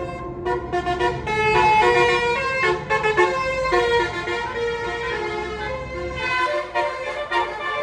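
A bus's 'telolet basuri' multi-tone horn playing a melody of stepped notes, over the low rumble of the bus's engine, which drops away about six seconds in.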